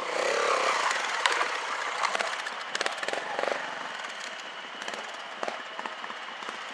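A trials motorcycle engine revving in short bursts, with sharp pops and cracks, busiest in the first half and settling to lower running after the midpoint.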